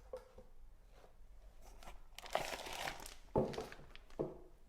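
Paper rustling and crinkling as the paperwork is handled, followed by two soft knocks.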